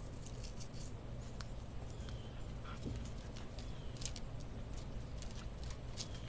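Faint scattered clicks and taps, a few of them sharper, over a steady low hum.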